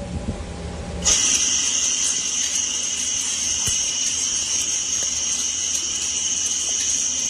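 CNC lathe spinning a steel bar, a steady high-pitched whine that starts abruptly about a second in and holds evenly.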